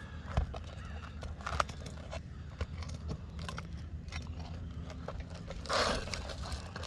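Asphalt roof shingle being pried up: scattered clicks and scrapes, then a short crackling tear about six seconds in as the brittle shingle rips.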